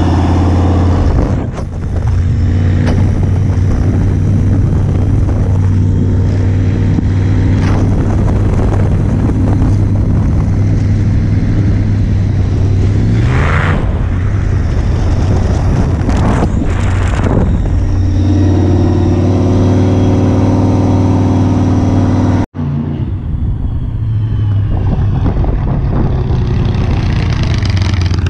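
Supercharged big-block Mopar V8 of a 1952 Plymouth street drag car, running loud under way, with the revs rising a couple of times around the middle. After a sudden cut near the end, the same engine is heard as the car drives by.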